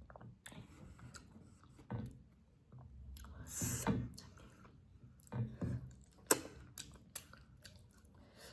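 A person chewing spicy chicken gravy rice close to the microphone, with irregular wet mouth smacks and small clicks and a sharper click a little past the middle.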